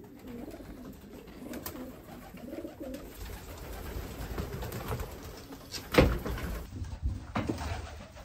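Pigeons cooing in a small coop, with a sharp knock about six seconds in and a few softer knocks after it.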